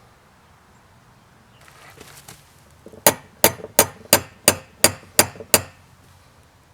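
Hammer blows on a railroad spike being forged on an anvil: eight strikes at about three a second, each with a short metallic ring.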